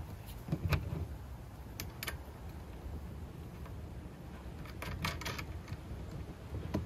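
Light metallic clicks and taps as lock nuts are threaded by hand onto the steel screw posts of a chrome saddlebag rail: a few single clicks, then a small cluster about five seconds in. A low wind rumble on the microphone runs underneath.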